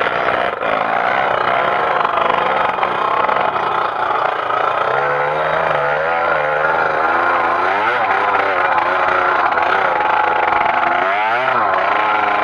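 Trail motorcycle engine revving hard, its pitch repeatedly rising and falling as the throttle is worked, with a sharp rev swing about eight seconds in and another near the end.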